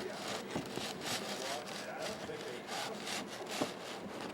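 Trading-card packaging being handled and opened by hand: a run of short rubbing and scraping strokes, with a sharp click about half a second in and a louder one a little past the middle.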